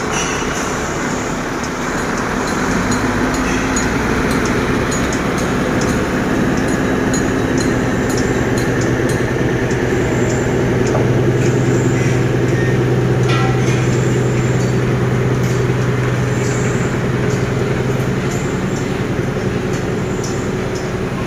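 Scania R580's V8 diesel engine pulling a heavily loaded low loader away from rest. The engine note climbs about two seconds in, holds steady under load, then drops near the end, with scattered light clicks and clanks over it.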